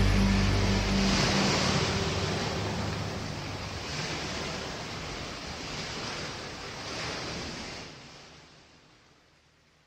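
Surf-like wash of waves in the soundtrack, swelling and ebbing every couple of seconds and fading out over the last two seconds. Low music notes die away in the first couple of seconds.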